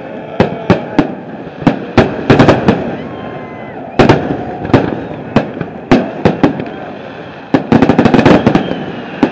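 Aerial fireworks shells bursting, one sharp bang after another every half second or so, with a rapid run of many bangs near the end.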